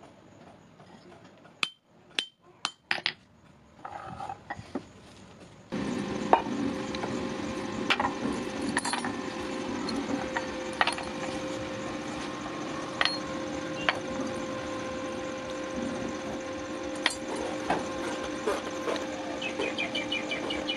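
Steel hook brackets and hand tools knocked and set down on a wooden block: four sharp clicks about two to three seconds in, then scattered irregular knocks and taps. A steady hum comes in about six seconds in and runs under the taps.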